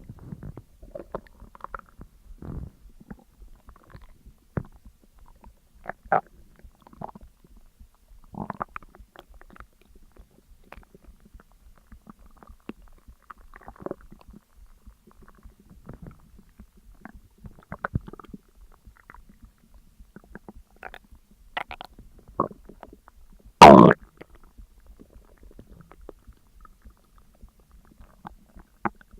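Human stomach gurgling and rumbling in short, irregular bursts while digesting a large meal. One much louder, sharper burst comes about four-fifths of the way through.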